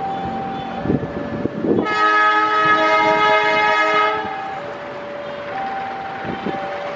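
A KAI CC206 diesel-electric locomotive sounds its multi-tone horn once for about two seconds, starting about two seconds in, as it approaches. Its engine runs underneath, with a few knocks from the wheels on the track.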